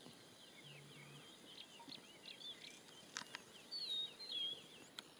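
Wild birds chirping and whistling in the bush: a busy run of short rising and falling notes, with one clearer falling whistle phrase a little under four seconds in. A couple of faint clicks come about three seconds in.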